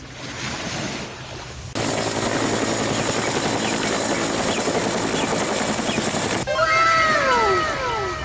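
Helicopter sound effect: dense rotor and engine noise with a steady high whine, starting about two seconds in and cutting off suddenly after about five seconds. Several falling pitched cries follow near the end.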